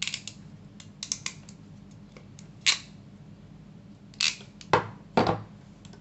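Hand crimping pliers clicking as an insulated pin terminal is crimped onto a wire end. There is a cluster of small clicks about a second in, then four louder sharp clicks over the next few seconds.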